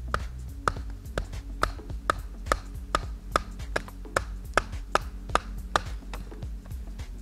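A wooden baton knocking on the spine of a large fixed-blade knife, driving the blade into an upright wooden stick (batoning). The sharp wooden knocks come evenly at about two a second.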